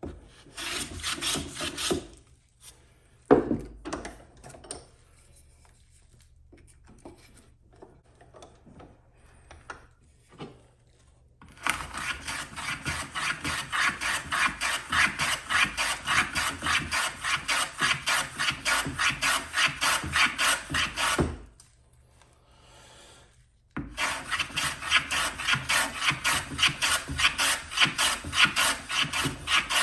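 A hand tool worked over a white pine batten: a knock and some light handling, then two long runs of rapid, rhythmic rasping strokes, about three a second, with a short pause between them.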